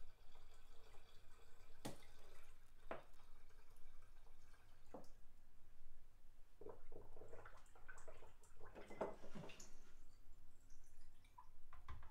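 Water trickling and dripping from a plastic jug through a funnel into a glass jar, with a few faint clicks along the way.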